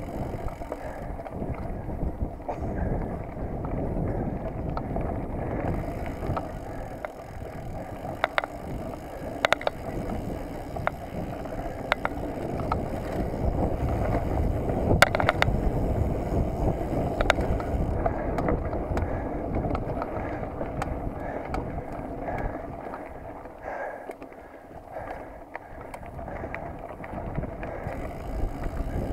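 Mountain bike riding over a dirt forest trail, heard from a camera on its handlebars: a steady rumble of tyres on the ground and the bike rattling, with a handful of sharp knocks and clicks in the middle.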